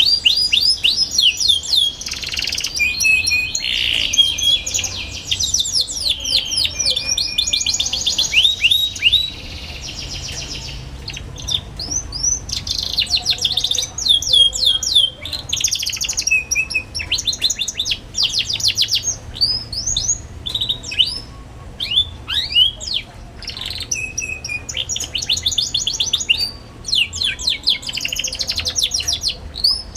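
Young domestic canary singing almost without pause: fast chattering 'ngeriwik' trills and rapid runs of high, downward-sweeping chirps, broken by short gaps.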